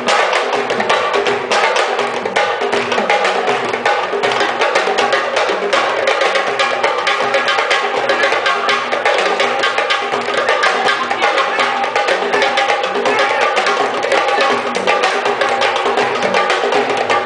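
Senegalese sabar drum ensemble playing a fast, dense rhythm of sharp drum strokes.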